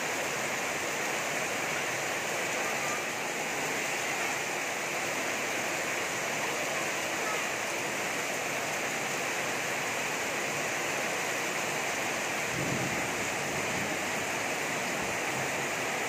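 Heavy tropical rain pouring onto a flooded street and metal roofs: a steady, dense hiss of falling water with runoff splashing from the eaves.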